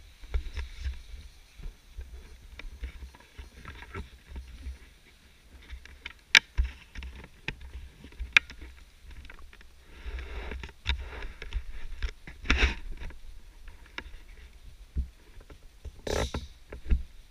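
Handling noise from a GoPro action camera being carried in the hand: rubbing and rustling on the housing with irregular low bumps and sharp clicks. Two of the clicks stand out, about two seconds apart near the middle, and there are longer stretches of rustling later on.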